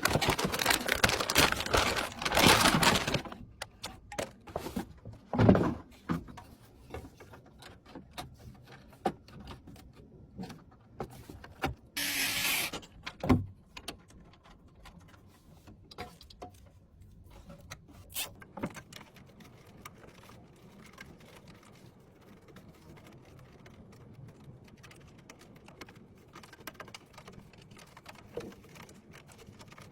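Clicks, knocks and rattles of hardware being handled, busy for the first three seconds and then sparse, with a short hiss about twelve seconds in followed by a knock.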